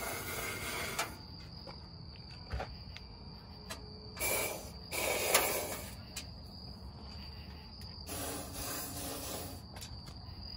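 Aerosol can of Fluid Film rust inhibitor spraying through a flexible 360-degree wand, in four short hissing bursts a few seconds apart.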